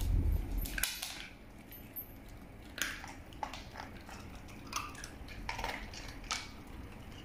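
Dogs nosing at a stainless steel bowl of dry kibble: scattered clinks of kibble against the metal bowl and crunching. A dull bump in the first second.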